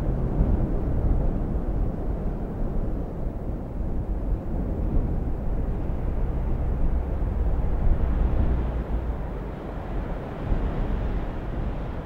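A low, steady rumbling noise with no distinct events, easing off over the last few seconds.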